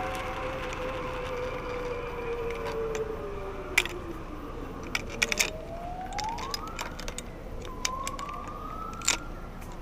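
Zipline trolley pulleys whining along the cable: a long tone sliding slowly down in pitch, then rising twice, over a steady hiss, with a few sharp clicks.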